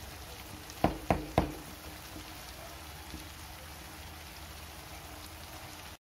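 Spice paste frying in oil in a metal kadai, a soft steady sizzle, with three sharp knocks in quick succession about a second in. The sound cuts off suddenly near the end.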